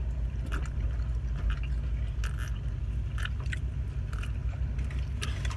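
Close-miked chewing of food from a Chipotle burrito bowl: a string of short, irregular mouth clicks and smacks, over the steady low hum of a car.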